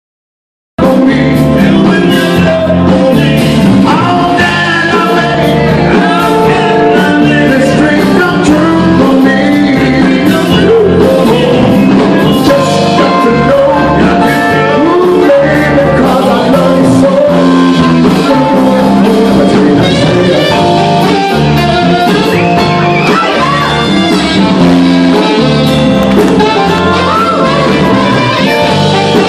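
A live band playing electric guitars and drums with singing, heard from far back in a hall. The music comes in sharply about a second in and then runs on at a steady level.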